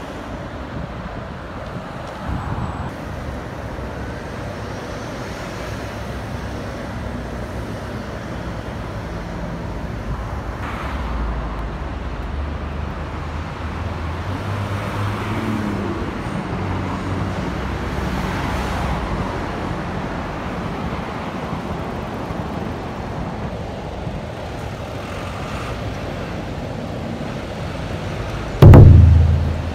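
Steady city traffic noise from a busy multi-lane road, with cars and trucks passing. A sudden loud thump comes about a second before the end.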